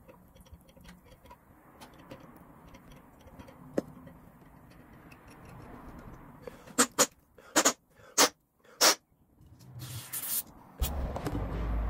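Faint ticks and creaks of a tap being turned by hand to cut a 6 mm thread in a steel linkage rod. These are followed by five short, loud hisses a little over halfway through, a longer high hiss, and then a low rumble near the end.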